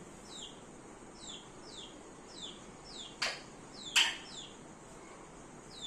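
A small bird peeping over and over: short, high, falling-pitched chirps about two a second. Two sharp clicks come about three and four seconds in.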